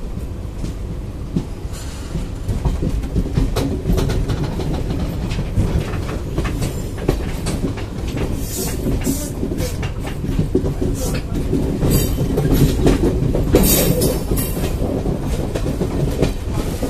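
Passenger train rolling slowly over rail joints and points, heard from aboard: steady wheel rumble with clickety-clack knocks from the wheels. A few short, harsher bursts of noise come about halfway through and again a little later.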